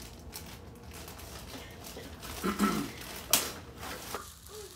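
Clear plastic bag and paper packaging rustling and crinkling as they are handled and unwrapped, with light clicks and one sharp click a little after three seconds in.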